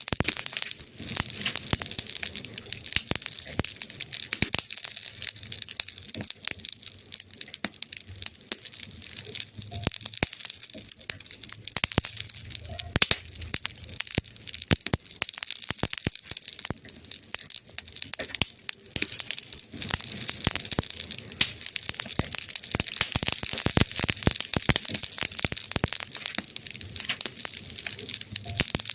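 Campfire crackling: wood burning with constant irregular pops and snaps over a steady hiss.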